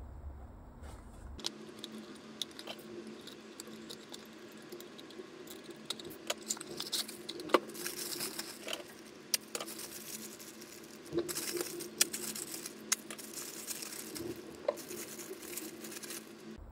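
Thin clear plastic bag crinkling and rustling as a small plastic figure piece is handled inside it and pulled out, with many small sharp clicks and taps.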